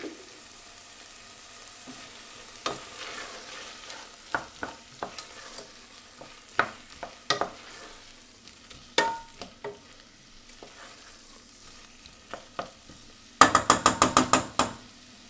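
Wooden spoon stirring onions and tomato paste as they sizzle in a stainless steel pot, with scattered knocks of the spoon against the pot. Near the end comes a quick run of about eight loud taps of the spoon on the pot.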